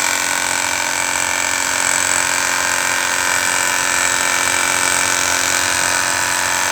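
A machine running steadily, with a strong hiss over a steady hum.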